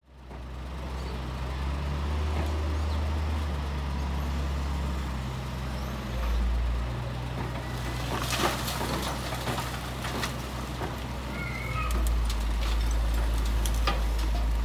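Heavy diesel engine of a construction vehicle running with a deep, steady hum, louder near the end. A few sharp knocks and clatters come about eight seconds in and again near the end.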